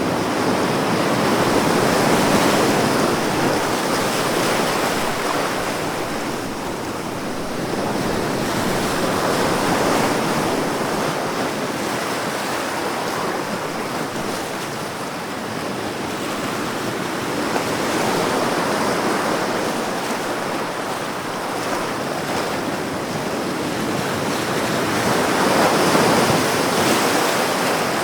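Ocean waves breaking in a continuous rush of surf, swelling and easing about every eight seconds.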